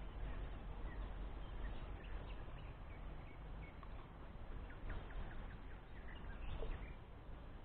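Wind rumbling on the microphone, with many short bird chirps and calls scattered over it.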